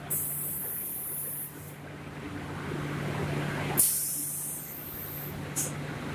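Automatic door-painting machine's spray guns hissing in bursts over a steady low machine hum: a long spray at the start, another about four seconds in, and a short one just before the end.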